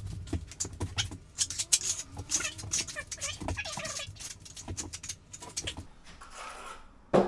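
Notched steel trowel scraping and knocking as thick adhesive is worked and spread, in a run of uneven scrapes and clicks with a few short squeaks, and a single thud near the end.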